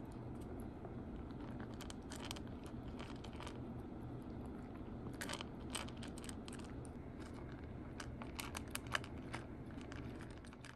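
Orange tabby kitten crunching dry kibble, a run of crisp irregular crunches that come in clusters, busiest near the end.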